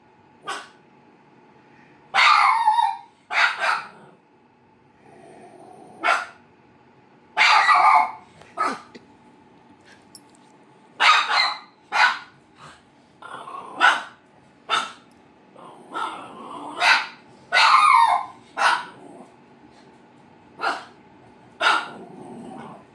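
A small red spitz-type dog barking repeatedly at a cardboard box on the floor, in short barks singly and in pairs a second or two apart: alarm barking at an object it does not like.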